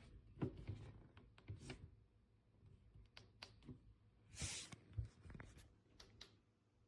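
Faint handling noises in a small room: scattered light clicks and knocks, a brief rustle about four and a half seconds in, then a thump.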